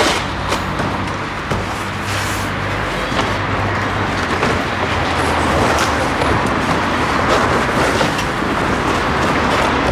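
Steady street traffic noise with a low engine hum, mixed with scattered scrapes and knocks of large cardboard panels being pulled off a motorcycle's metal shipping crate.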